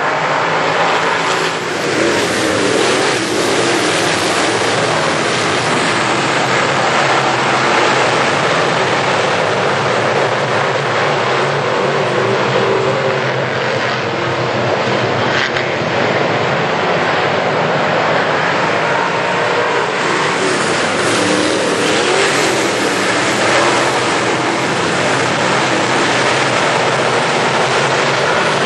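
A field of GM crate late model dirt-track race cars at speed, their V8 engines running hard together in a steady, loud drone.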